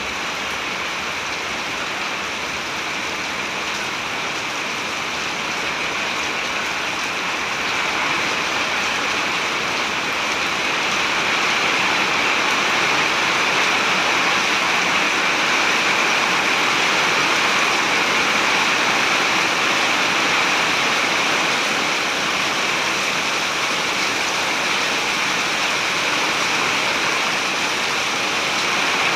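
Heavy rain pouring down steadily, a dense hiss that grows a little louder about a third of the way in and stays heavy.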